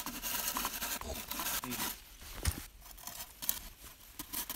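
Knife blade shaving and scraping the end of a green, bark-covered pole in rough strokes over the first two seconds, with one dull knock about two and a half seconds in and more scraping near the end.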